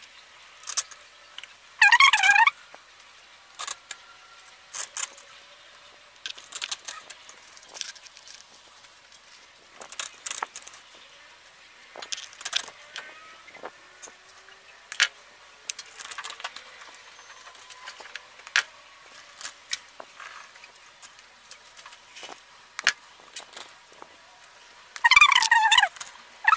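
Plastic glittered fern sprays rustling and crackling as they are handled and pushed into floral foam, in short scattered clicks. A fowl's short warbling call sounds about two seconds in and again near the end.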